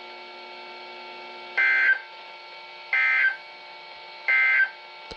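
Emergency Alert System end-of-message code: three short bursts of digital data tones, about a second and a half apart, signalling that the alert broadcast is over. A faint steady hum from the broadcast runs beneath them.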